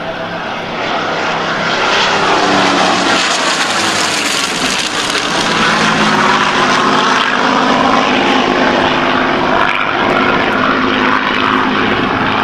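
Three WWII propeller fighter planes flying past in formation, their piston engines droning with a pitch that shifts as they pass. The engine sound swells about a second in and stays loud.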